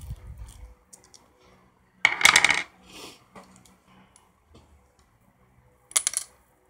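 Small hard objects clattering and clinking against a hard work surface twice, a longer clatter about two seconds in and a short one near the end.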